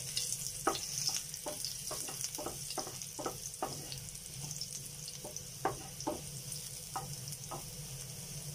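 Chopped garlic sizzling in hot oil in a pan, with a steady high hiss, while a wooden spatula stirs it, tapping and scraping against the pan two or three times a second.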